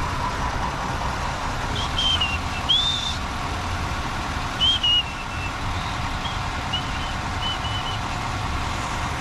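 A truck engine idling steadily, with a handful of short high chirps sounding over it at irregular moments.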